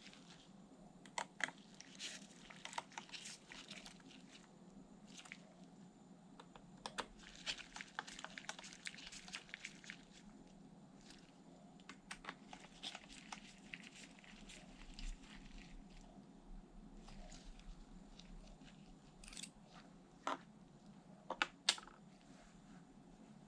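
Irregular light clicks, taps and crinkly rustling from hands handling small hard objects, over a steady low hum; the sharpest clicks come near the end.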